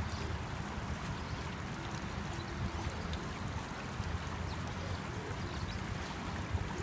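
Shallow river water flowing steadily over rocks, a constant rush with a low rumble underneath.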